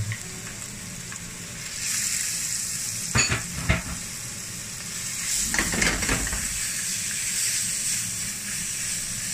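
Ground chilli, shallot and garlic spice paste sizzling as it fries in hot oil in a wok, the sizzle growing louder about two seconds in. A few knocks and scrapes against the wok come around three to four seconds in and again near six seconds as the paste is worked.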